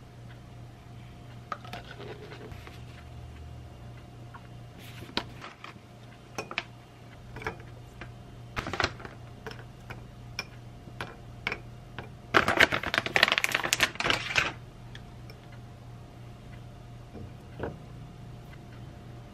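Close-up sounds of a yogurt bowl being assembled: scattered light clicks and taps of toppings and a wooden spoon against a glass dessert bowl. Past the middle comes a dense rattle of small hard pieces lasting about two seconds. A low steady hum runs underneath.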